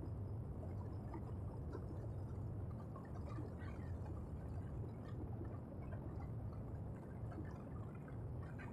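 Steady low rumble of a small vehicle riding along a paved road, with road and wind noise on the microphone and faint scattered crackles.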